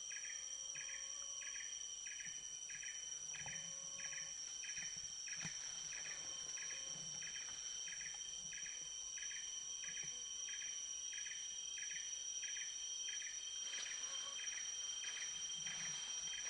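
Tropical forest insects calling: two steady high-pitched drones with a regular pulsing chirp repeating about one and a half times a second.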